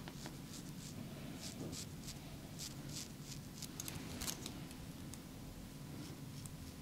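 Close-miked barber work on hair and skin: a run of short, crisp scraping strokes at an irregular pace of a few a second, over a steady low hum.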